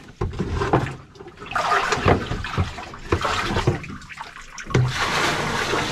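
Flood water being bailed by hand from a boat's flooded compartment: repeated scoops and pours that slosh and splash in separate bursts about every second or so.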